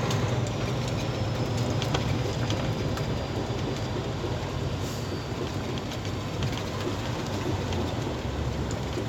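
Vehicle cab noise while under way: a steady engine and road drone with irregular dull knocking that comes in as the truck slows. The knocking is from a road wheel whose nuts have worked loose and whose studs have broken.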